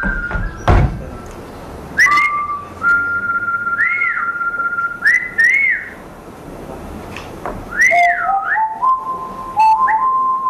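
Whistled notes: long held single tones broken by swooping rises and falls, stepping lower in the last few seconds. A sharp knock sounds under a second in.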